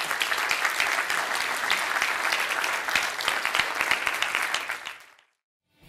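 Audience applauding, a dense spread of many hands clapping that fades out about five seconds in.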